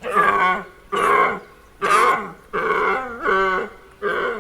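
A rutting deer's deep, croaking roars and grunts: a run of short calls repeated about once a second.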